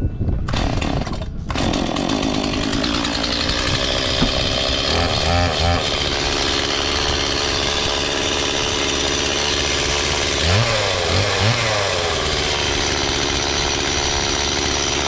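Small petrol engine running fast. Its pitch swings up and down a few times about five seconds in and again around eleven seconds in.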